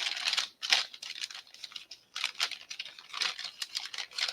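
Plastic packaging bag crinkling and rustling in irregular bursts as silicone molds are handled and pushed back into it, with a short lull about two seconds in.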